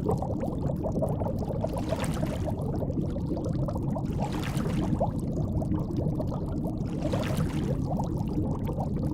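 Frogs croaking in a dense, bubbling chorus, with a louder swell every two or three seconds.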